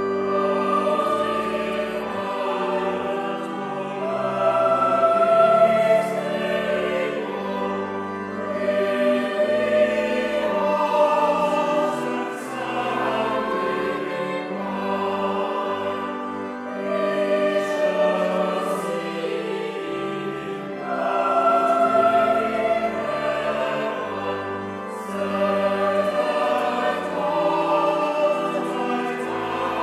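A choir singing a carol over low sustained bass notes, the music starting abruptly at the outset.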